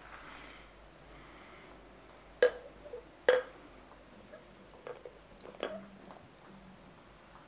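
A gushing, over-foaming bottle of oatmeal stout being handled and poured into a glass: two sharp knocks a little under a second apart, then a few lighter ticks over faint pouring and fizzing.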